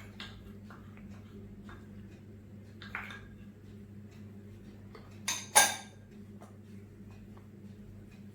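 Kitchen utensils clinking against a mixing bowl: a few light taps, then two sharp ringing clinks about five seconds in, the second the loudest. A low steady hum runs underneath.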